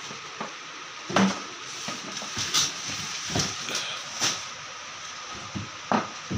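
Scattered knocks and clatters of household items being lifted out and set down while a cabinet is cleared, the loudest about a second in and another near the end, over a steady hiss.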